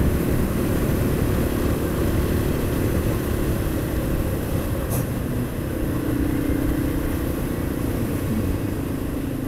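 Yamaha XT225's single-cylinder four-stroke engine running steadily while riding, with wind rush over the microphone. The engine note shifts slightly lower a little past halfway.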